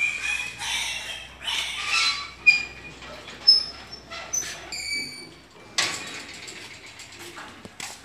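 Pigs squealing in bursts through the first couple of seconds. Then come sharp metallic clanks and short ringing squeaks as the iron bar gate and its bolt latch are worked open, with a hard clank about six seconds in.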